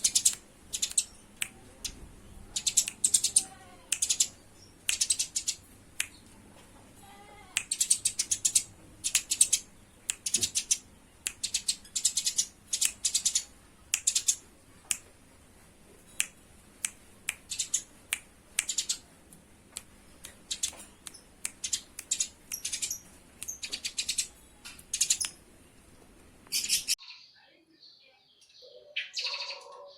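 Eurasian tree sparrows chattering in rapid clusters of sharp, high chirps, the harsh calls of sparrows fighting. About 27 seconds in the recording cuts to softer, lower chirps.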